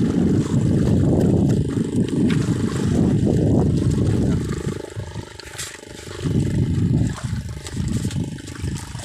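Wind buffeting a phone microphone in gusts, easing for a moment around the middle, over a faint steady hum.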